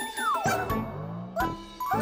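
Cartoon soundtrack: music with a squeaky character vocalisation that glides down in pitch at the start, then a few sharp knocks as a small trampoline drops and lands.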